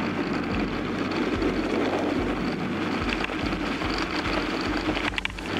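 Bicycle tyres rolling fast over a dirt forest road: a steady rumbling crunch with wind buffeting the microphone, and a few sharp rattles near the end.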